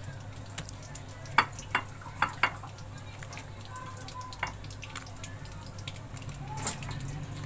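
Fried gram-flour dumplings (baray) dropped by hand one by one into a bowl of water: a string of about seven soft plops and splashes, over a steady low hum.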